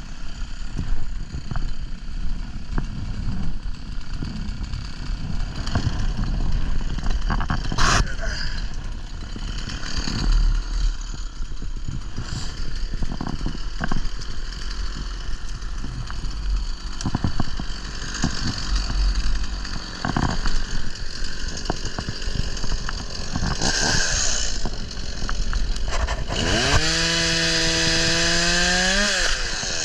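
Chainsaw engine revving up to full throttle near the end, held for about two and a half seconds, then cutting off suddenly. Before that come scattered knocks and cracks over a low rumble.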